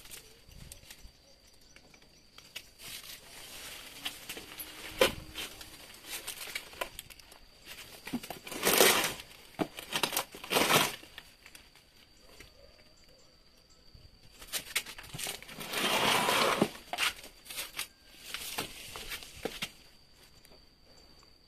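Rustling and scraping as a guava tree's root ball is lowered into a red plastic basin of sand and soil and shifted into place, in a few separate bursts around the middle and near the end.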